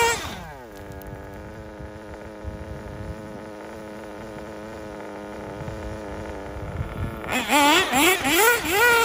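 Kyosho MP9 TKI4 nitro buggy's small glow engine dropping from high revs to a steady idle, then revving up again in several quick blips near the end. The new engine is still tuned a bit rich.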